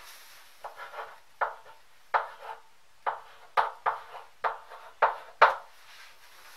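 Chalk on a blackboard: a string of short taps and strokes, roughly one every half second, as figures are written.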